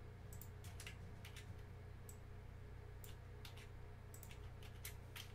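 Faint, irregular clicks of a computer keyboard and mouse as text is edited, a dozen or so scattered keystrokes, over a steady low hum.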